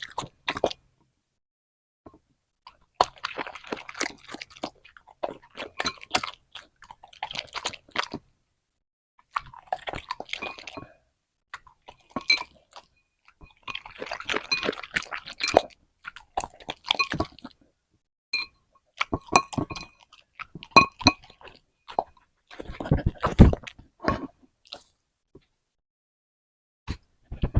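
A puppy chewing and crunching a vegetable, in bursts of crisp crunches with short silent pauses between them.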